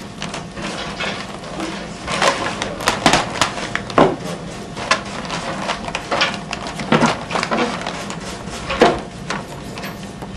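Wooden segments of a collapsible lamp-shade form knocking and clattering as they are worked loose and taken apart inside a paper shade: irregular sharp knocks, the loudest about four seconds in and again about nine seconds in.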